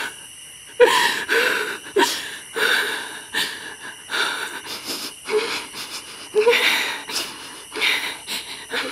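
A woman breathing hard and shakily right at the microphone, in gasping, wheezy breaths that come about once or twice a second, the frightened, tearful breathing of someone close to sobbing.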